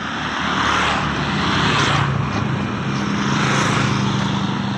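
Several motor scooters passing close by one after another, their engine drone and tyre noise swelling and fading twice.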